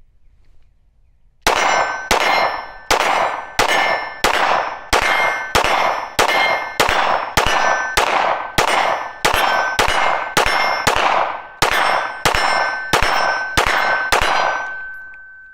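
A 9mm SIG P320 Spectre Comp pistol fired at a steady pace, about twenty shots at roughly one and a half a second, each with a ringing metallic clang. A ringing tone hangs on briefly after the last shot.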